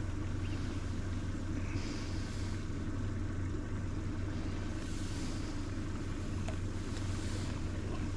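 A boat's motor running steadily at low revs, a constant low drone. Soft hissing comes and goes a few times over it.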